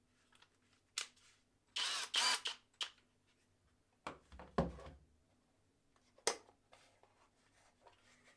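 Clicks and knocks from handling the drill and its removable metal chuck. There is a short rattling scrape about two seconds in, a knock with a low thud about four and a half seconds in, and a sharp click about six seconds in.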